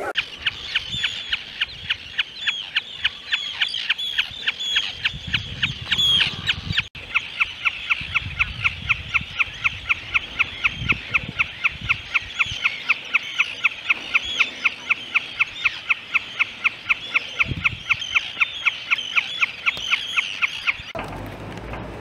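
Common snipe calling from a perch: a long steady run of rhythmic 'chip-per' calls, about four a second, the snipe's breeding-season call. The calls break off briefly about seven seconds in and stop about a second before the end.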